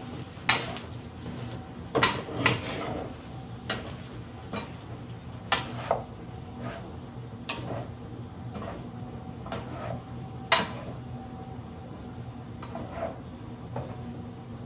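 Wooden spatula stirring cooked pasta in a frying pan: irregular knocks and scrapes of the spatula against the pan, the loudest about two and ten and a half seconds in.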